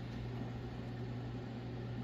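Belt-drive Pioneer PL-112D turntable running with no record playing: a steady low hum with an even hiss over it, running freely on a new drive belt.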